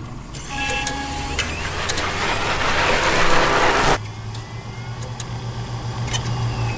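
Electronic intro sound design: a few short beeps, then a swelling rush of noise that cuts off suddenly about four seconds in, followed by a steady low hum with scattered clicks and faint sliding tones.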